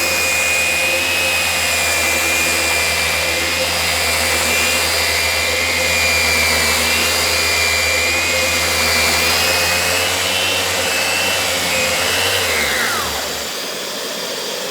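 Festool Rotex 150 sander running in direct-drive mode with 80-grit paper, cutting through stain on a maple tabletop, with a steady motor whine and the rush of its dust extraction. About twelve seconds in the sander is switched off and winds down, its whine falling in pitch as it stops.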